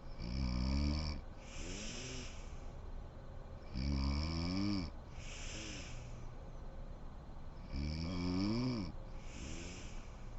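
A sleeping woman snoring: three loud pitched snores on the in-breath, about four seconds apart, each followed by a softer, breathy out-breath.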